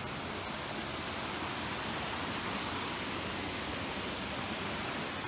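Steady rush of a mountain creek's running water, an even hiss with no breaks.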